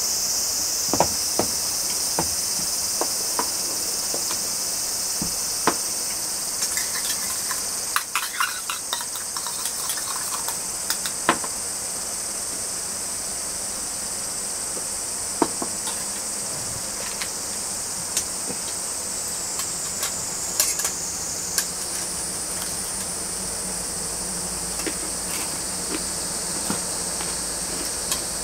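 Steady high-pitched chorus of insects chirring outdoors, with scattered light clicks and clinks of metal plates, cups and a crisp pastry crust being handled, a flurry of them about a third of the way in.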